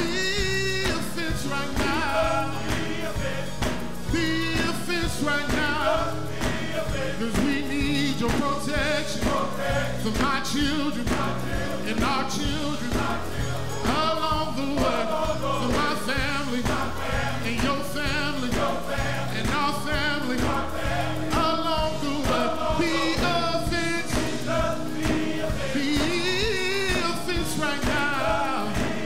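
Live gospel music: a male lead singer sings into a microphone, backed by a male chorus and instrumental accompaniment with a steady beat, and hands clap along.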